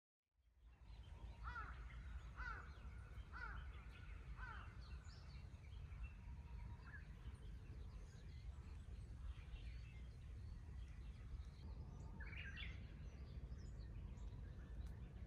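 Outdoor ambience of birds calling over a steady low rumble. One bird gives a short call four times, about a second apart. Scattered chirps follow, and a brief louder run of calls comes near the end.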